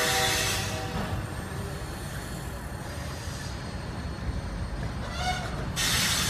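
Diesel freight train's multi-tone air horn, its chord ending about a second in, followed by the low rumble of the train rolling away. A brief rising squeal comes about five seconds in, and a burst of hiss near the end.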